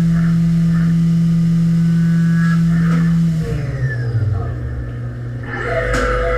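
CNC vertical milling machine spindle running, an end mill cutting a metal engine adapter plate under coolant spray, with a steady low hum. About three seconds in the hum drops in pitch and turns uneven, and near the end sharper mechanical noises come as the spindle lifts clear of the part.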